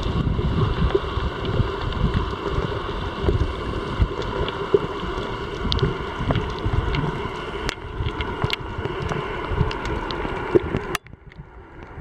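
Steady, muffled rushing of water against an underwater camera housing while the swimmer moves, cutting off abruptly about eleven seconds in, with a few faint clicks afterwards.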